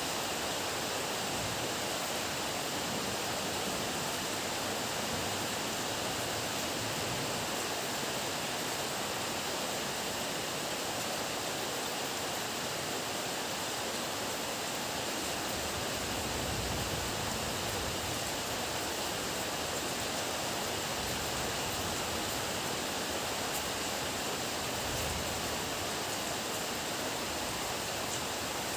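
Heavy rain falling steadily in an even hiss, with faint low rumbles swelling briefly a little past halfway and again near the end.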